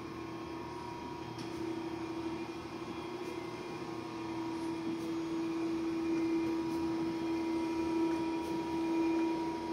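Steady machine hum with one constant mid-pitched tone, growing a little louder about halfway through.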